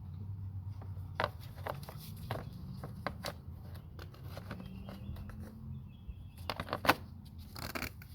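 Plastic engine cover being fitted back over the ignition coils: a run of scattered clicks and knocks, with a cluster of sharp snaps about six and a half seconds in, the loudest near seven seconds. A steady low hum lies underneath.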